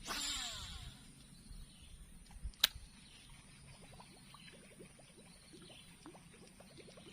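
A baitcasting reel's spool whirring as line pays out on a cast, its pitch falling as the spool slows over about a second. A single sharp click follows a couple of seconds later, with faint short chirps in the background.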